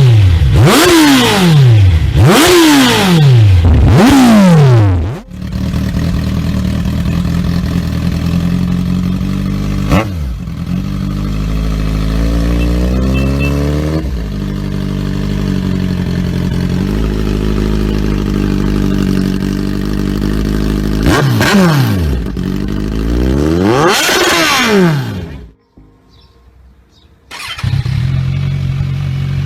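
Modified Kawasaki Z1000 inline-four motorcycle engines in a series of clips. First four quick throttle blips, each falling back in pitch. Then a steady idle with one short blip and a slight rise, two more revs, a brief near-silent gap, and another bike idling.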